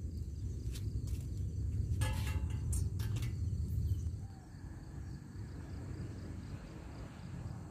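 Scattered clicks and rustles over a low rumble, which drops away about four seconds in and leaves faint outdoor background noise.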